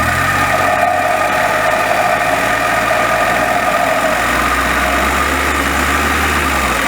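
Volvo V60 T4 pulling away cold in first or second gear, with a steady rubbing noise over the engine that fades about four seconds in as the engine note changes. It is a cold-start noise that appears once the clutch engages and dies away after a few hundred metres of driving.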